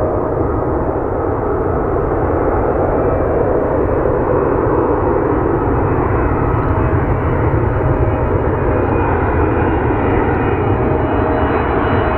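Jet airliner on final approach, its engines making a loud, steady rumble overlaid with faint whining tones, the highest of which rises slightly near the end.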